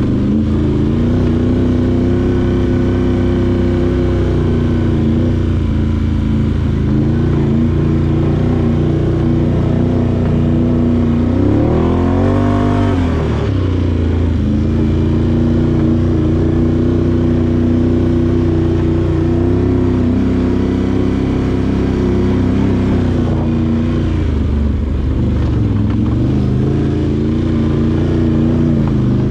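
Can-Am Outlander 850 ATV's Rotax V-twin engine running at a steady trail pace. About twelve seconds in, the engine revs up and back down once, and its pitch shifts a little a few more times.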